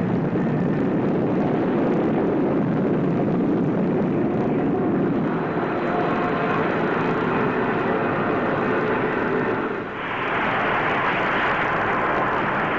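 Spaceship rocket sound effect for a lift-off: a steady low rushing noise, switching about ten seconds in to a higher, hissier rush.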